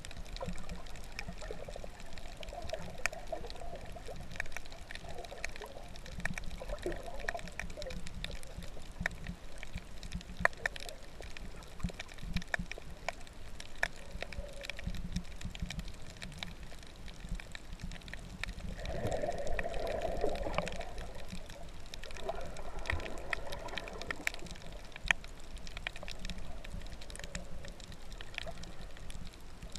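Underwater water noise from a camera held just below the surface: a muffled sloshing and rushing of water with many scattered sharp clicks and crackles. A louder rush of water comes about two-thirds of the way through.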